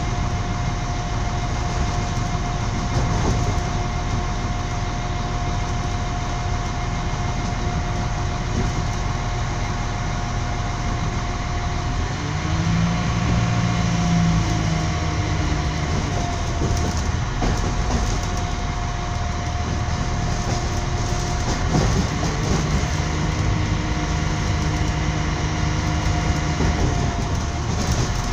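Train running at speed, heard from inside a carriage: a steady rumble of wheels on rails with a constant high whine, and a deeper hum that comes in twice, for a few seconds each time.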